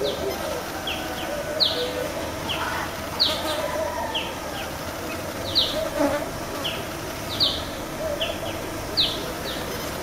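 Birds in a morning chorus: short, sharp high chirps repeated about once a second, over a steady background of lower warbling calls.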